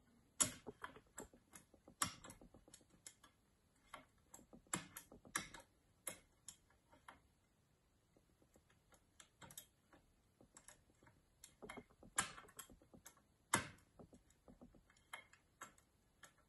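Lock-picking hooks working the levers inside a Mottura 52771 lever mortise lock: faint, irregular metallic clicks and ticks in scattered clusters, with a pause in the middle.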